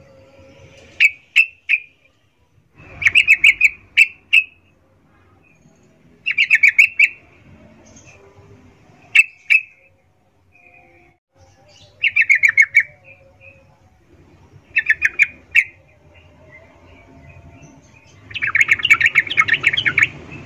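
Yellow-vented bulbul giving short bursts of rapid chattering calls, about seven bursts with pauses between them, the longest near the end. This is the female's breeding-condition call, used to draw males.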